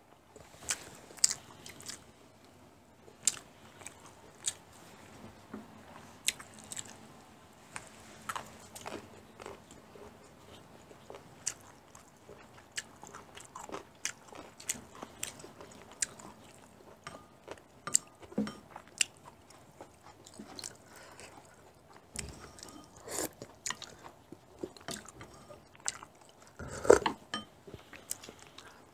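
Close-miked eating of japchae (stir-fried glass noodles with vegetables): chewing and mouth noises with scattered sharp clicks of metal chopsticks and spoons against porcelain dishes. The loudest cluster comes near the end.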